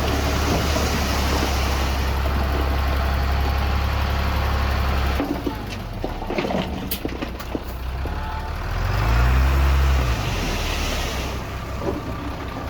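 Diesel engine of a heavy earthmoving machine running, with a steady low drone that drops off about five seconds in, a few sharp clanks, then a rev that rises and falls about nine seconds in.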